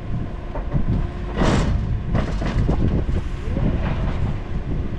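Forklift engine idling steadily, with a brief rush of noise about a second and a half in.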